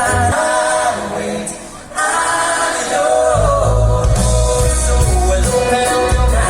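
A song with singing voices played loud over a hi-fi demonstration system with six subwoofers. The music thins out briefly about a second and a half in, and deep bass comes in strongly from about three seconds.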